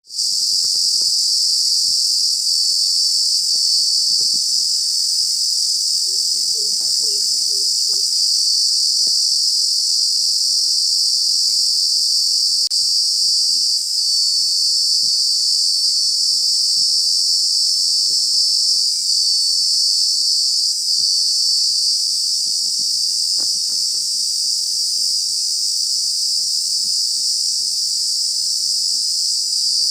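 A steady, high-pitched chorus of insects chirring.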